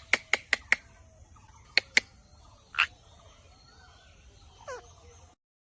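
Pet parrot calling: a quick run of five short, sharp chirps, two more about two seconds in, a longer squawk soon after, and a falling whistle near the end.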